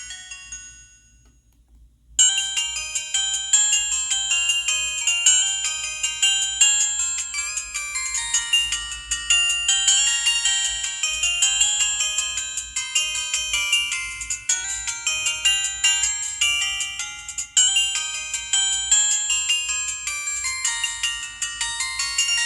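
Polyphonic ringtones played through a Samsung SGH-T629 phone's small speaker. One tune fades out, and after a short gap a new one starts about two seconds in: a quick, busy melody of high notes with little bass.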